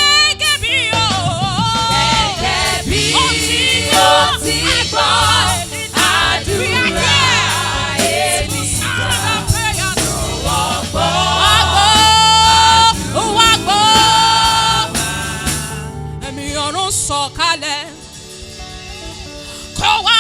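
Gospel worship song: voices singing with swooping, ornamented melody lines over instrumental backing. It drops quieter for a couple of seconds near the end, then comes back in full.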